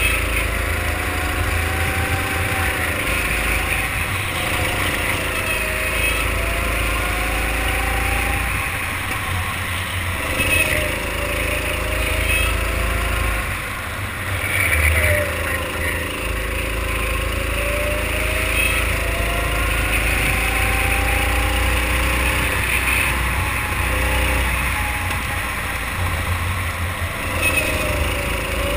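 Racing kart engine heard from onboard at speed, its revs climbing through each straight and falling away as the driver lifts for the corners, several times over.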